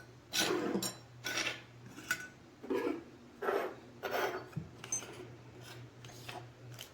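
Small metal heat gun nozzle tips being handled, clinking and rubbing against each other and the surface in a string of short, irregular scrapes and clicks.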